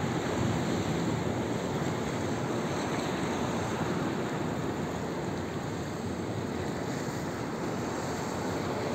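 Rough sea breaking on a rocky, pebbly shore: a steady rush of surf.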